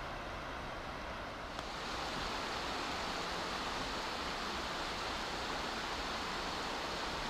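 Steady rush of running water. About a second and a half in it jumps suddenly to a louder, brighter rush and holds there.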